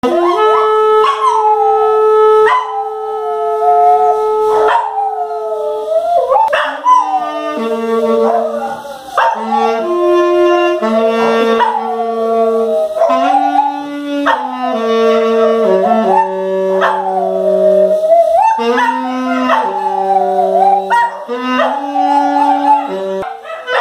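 A dog howling along to a saxophone: the saxophone plays a slow melody of long held notes while the dog howls again and again, each howl swooping up and then sliding down in pitch.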